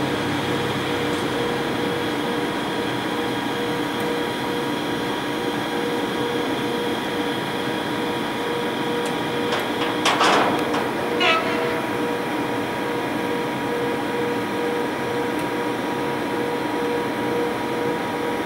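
British Rail Class 92 electric locomotive standing powered up, with its pantograph raised: a steady electrical hum with fan noise. About ten seconds in comes a brief rush of noise, followed by a short falling squeal.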